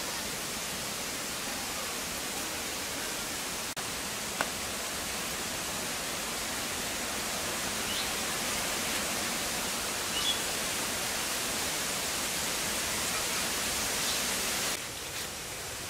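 Steady, even outdoor hiss, with a few faint crisp ticks as a bitter melon is sliced against a boti blade.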